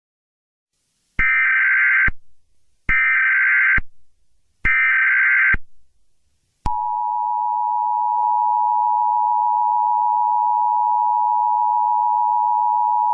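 Emergency Alert System tones. Three burst-like data headers of about a second each are spaced evenly, then the steady two-tone attention signal starts about seven seconds in. Together they signal the start of an emergency alert broadcast.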